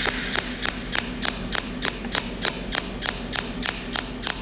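Cold welding machine firing a steady train of short arc pulses, about three sharp snaps a second, fusing a narrow seam directly without filler wire in continuous pulse welding.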